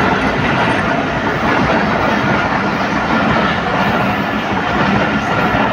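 Express train's passenger coaches running through a station at speed without stopping: a loud, steady rush of steel wheels on rails.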